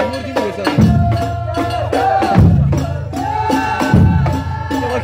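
Ahwach, Amazigh folk music: a group singing over large frame drums beating a steady rhythm. A deep beat comes about every second and a half with sharper strikes in between, and the voices hold one long note in the middle.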